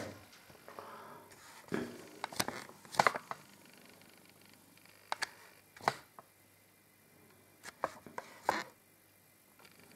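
Handling noise: scattered short knocks and clicks with brief rustling, loudest about three seconds in, with more near six and eight and a half seconds.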